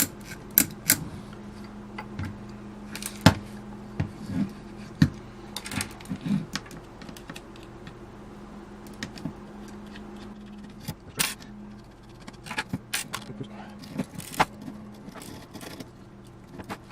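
Irregular clicks and light metallic taps from handling the wafer switches and gear-driven rods inside a Marconi radio control box, over a faint steady hum.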